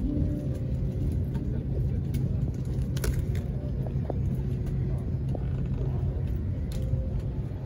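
Airliner cabin noise: a steady low rumble, with a few faint clicks about three seconds in and near the end.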